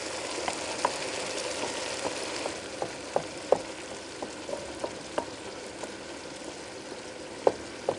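Chopped vegetables sizzling in a pot as hot water is ladled in and stirred, with irregular sharp clicks of the ladle knocking against the pot. The sizzle is strongest for the first couple of seconds, then eases.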